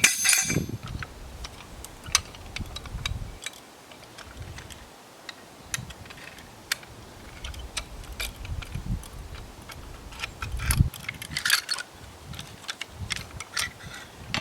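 Metal pulley and rigging hardware clinking and clicking as another pulley is rigged in. A loud jangle comes right at the start and another cluster of clinks about eleven seconds in, with scattered single clicks between.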